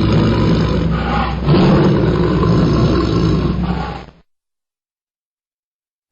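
A big cat roaring and growling in a deep, rough, continuous roar that grows louder about a second and a half in, then cuts off suddenly about four seconds in, followed by complete silence.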